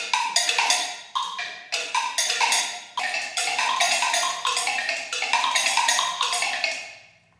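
Robotic percussion sculpture striking wood blocks and other mounted percussion in a fast, irregular, interlocking rhythm, improvised in real time by software running eight independent clocks. The playing fades out about seven seconds in.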